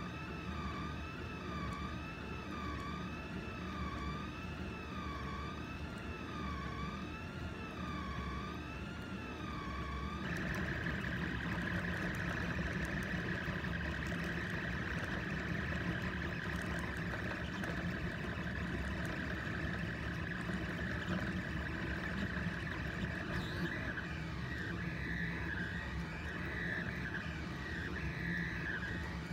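A 3D printer's stepper motors whining as the print head moves while printing. The tone warbles regularly up and down for about the first ten seconds, then jumps to a steadier, higher whine over a low hum, wavering again near the end.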